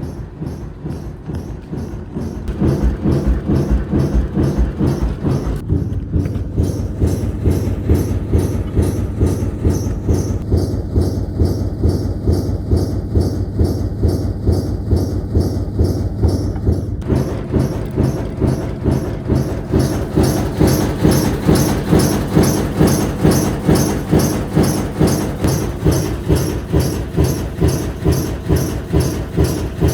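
Older washing machine shaking badly as it runs, its drum banging in a fast regular rhythm of about three thumps a second over a motor hum. The knocking gets louder about two and a half seconds in.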